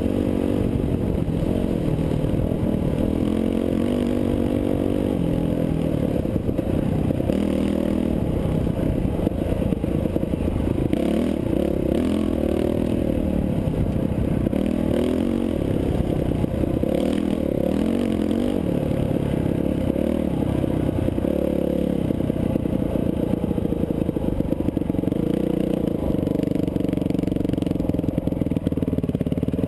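Dirt bike engine running under way on a rough dirt trail, its pitch rising and falling with the throttle, heard from a camera riding on the bike, with clattering from the bumpy ride.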